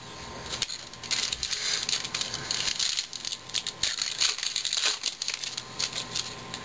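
Foil wrapper of a 2011 Topps baseball card pack crinkling and crackling with many irregular snaps as it is picked up, handled and torn open.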